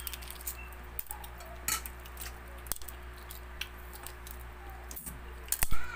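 Metal spoon clinking and scraping in a ceramic bowl, with small scattered clicks of eating balut (boiled duck egg) and a louder clatter near the end, over a steady low hum.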